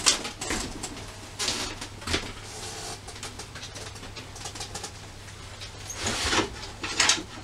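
Metal knocks and short scrapes of a wood lathe's tool rest and tailstock being slid, set and locked by hand, with the blank held still between centres, over a steady low mains hum.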